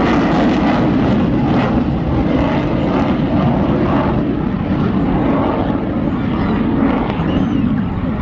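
F-16 fighter jet's engine noise in flight: a loud, steady rush with no pauses.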